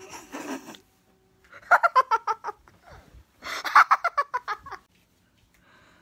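Young women laughing in two bouts of quick, rapid-fire giggles, the first about two seconds in and the second about four seconds in.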